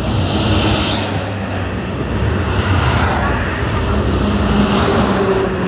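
Steady rumble and wind noise of riding in a moving vehicle, with oncoming traffic rushing past. A bus goes by with a whoosh about a second in, and a truck passes with a low engine hum near the end.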